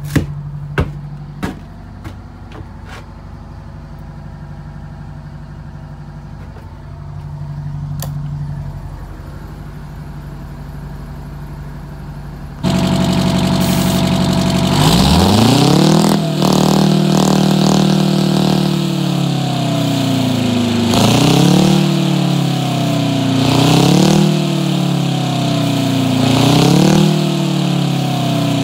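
Two-stroke 8V71 Detroit Diesel V8 running cold at 15°F: a steady low idle with a few clicks, then much louder, revving up and repeatedly blipped, its pitch rising and falling about every three seconds.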